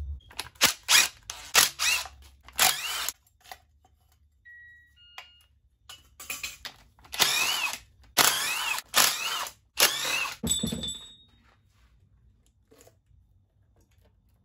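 Cordless power driver spinning out valve-cover bolts in short whirring runs, each rising and falling in pitch. A first cluster of quick bursts is followed by a pause of about three seconds, then four or five longer runs. A brief scrape comes near the end.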